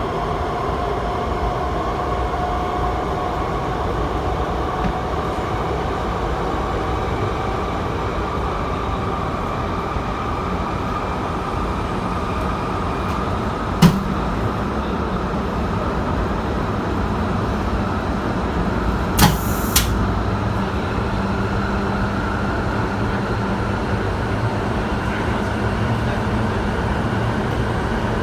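MTR IKK-Train electric multiple unit running at speed, a steady rumble of wheels on rail with a faint traction-motor whine that slowly rises in pitch. A sharp click about halfway through and two short bangs a few seconds later.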